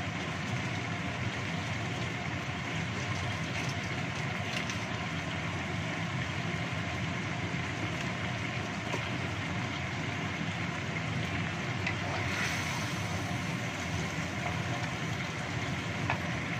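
Chicken in sweet-spicy soy sauce simmering in a wok on a gas stove: a steady hiss. A light tick sounds near the end.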